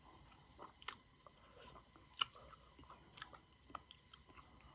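A person chewing a mouthful of rice with nettle curry, with quiet wet mouth clicks throughout. There are two sharper clicks, about a second in and just after two seconds.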